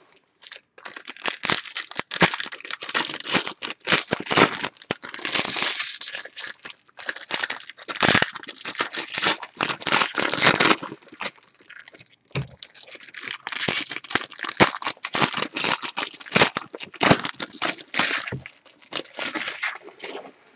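Foil wrappers of baseball card packs being torn open and crinkled in hand, a dense crackling that comes in runs with brief pauses, the longest about twelve seconds in.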